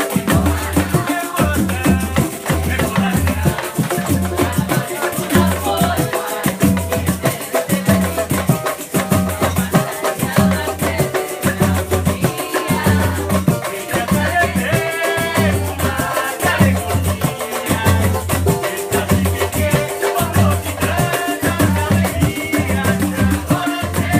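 Amateur samba group playing live: hand drums and a deep bass drum beating a steady repeating rhythm, with small four-string guitars strumming along.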